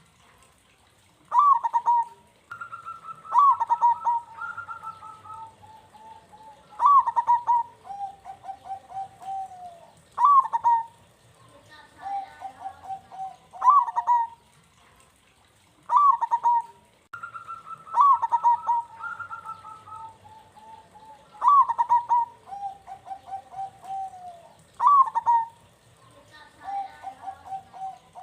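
Zebra dove (perkutut) cooing in a loud, repeated phrase, about every three seconds. Each phrase opens with a sharp, bright note and trails off in a run of softer, lower coos.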